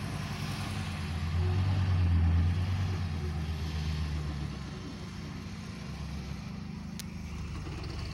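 Loaded dump truck's diesel engine running as the truck drives slowly across a field: a low, steady drone that swells about a second and a half in, then eases off. A single sharp click near the end.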